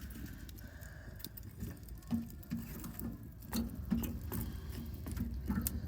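Burning fuel in a barbecue fire being spread out, with irregular scraping and clinking knocks.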